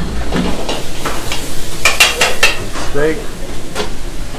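Busy commercial kitchen during service: metal pans and utensils clattering, with a quick cluster of sharp metallic clinks about two seconds in, over the steady sizzle of food frying on the gas range.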